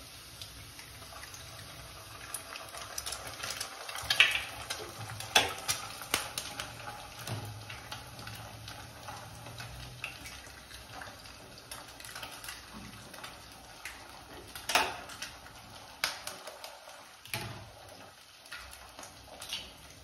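Eggs being tapped open and dropped into a stainless-steel kadhai of frying onions, with a faint sizzle from the pan and a scatter of sharp taps and clicks of shell and utensils on the pan.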